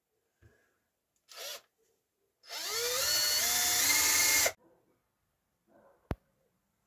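Cordless drill with a 2.5 mm bit boring a pilot hole in a wooden corner support: a short burst of the motor, then about two seconds of whine rising in pitch as it runs up, stopping suddenly. A single sharp click comes near the end.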